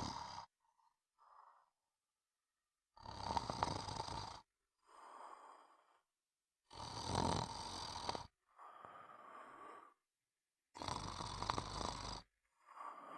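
Slow, regular snoring: three loud snores about four seconds apart, each followed by a quieter breath.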